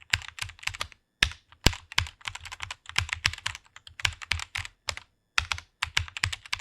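Rapid typing on a computer keyboard: a fast, uneven run of key clicks, with brief pauses about a second in and about five seconds in.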